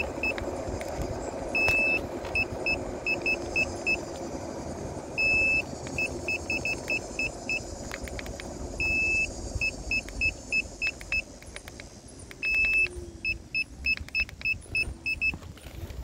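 iSinwheel S9 Max electric scooter beeping an alarm: one long high beep followed by a string of short quick beeps, the pattern repeating about every three and a half seconds, with a few clicks in between. The scooter is signalling a fault.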